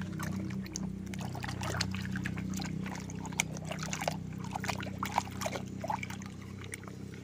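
A hand swishing and scrubbing a small plastic toy car in a basin of muddy water: irregular splashing and sloshing, over a steady low hum.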